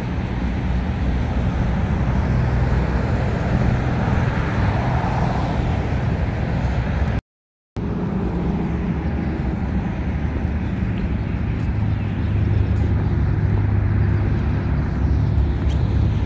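Steady low outdoor rumble, with a brief drop to dead silence about seven seconds in.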